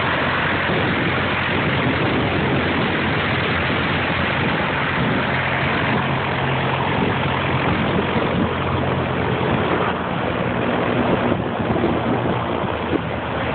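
Cessna 152's four-cylinder Lycoming piston engine and propeller running at low taxi power, a steady drone with a rushing noise over it, as the plane taxis past and rolls away.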